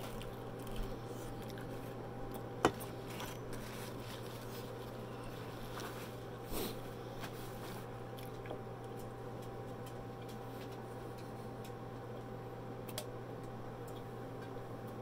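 A person drinking beer from a glass bottle: faint sipping and swallowing mouth sounds over a steady low room hum, with one sharp click a little under three seconds in.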